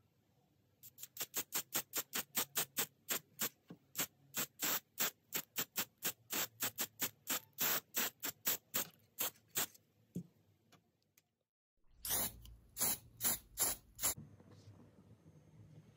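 Repeated short rasping strokes on plastic, about three a second, typical of hand work on the broken part, such as filing, sanding or scraping. After a brief break about eleven seconds in, a shorter run of strokes follows over a low rumble.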